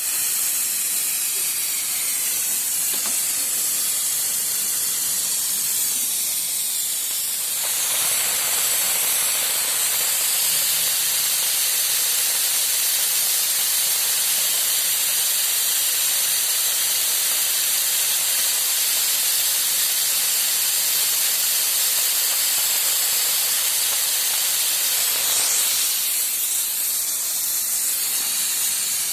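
A steady hiss, the sound of a Honda CR-V engine being given a combustion-chamber cleaning. It grows fuller about a quarter of the way in and eases back a few seconds before the end.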